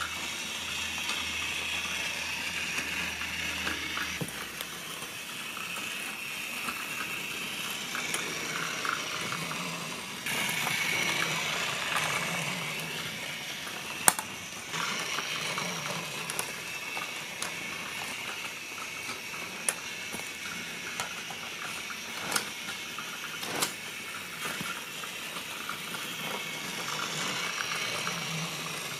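Battery-powered Plarail toy trains running on plastic track: a steady whirring rattle of small motors and wheels, with a few sharp clicks, the loudest about halfway through.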